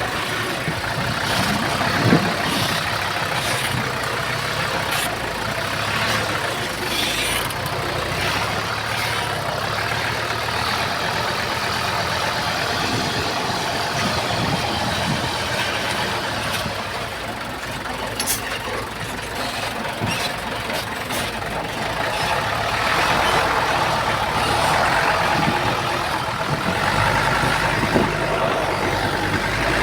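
Heavy diesel earthmoving machinery running steadily, with a few sharp metallic clanks and the engine note swelling briefly in the second half.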